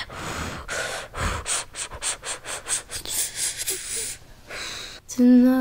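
Quick, breathy puffs and breaths right up against a microphone, about five a second, then a longer breathy hiss. A held sung note begins near the end.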